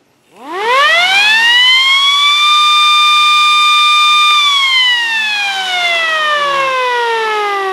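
Small red MS590 DC electromechanical siren winding up over about two seconds to a steady wail. About four seconds in the power is cut and it winds down slowly and evenly, still falling at the end. The slow wind down comes from a large capacitor wired in parallel with the siren, discharging into its motor.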